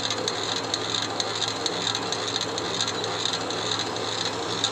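Wood pellet mill running steadily: a constant low hum with quick, irregular rattling clicks over it.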